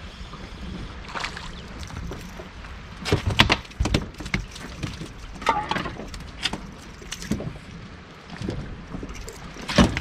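Irregular knocks and clatter on a small fishing boat as a Spanish mackerel is brought in. The loudest come about three to four seconds in and again near the end, over steady wind and water noise.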